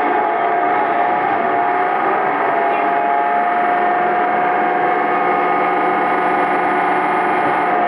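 Diesel railcar under way, heard from inside the carriage: steady engine and running noise with a high whine that rises slightly in pitch over the first few seconds, then holds steady.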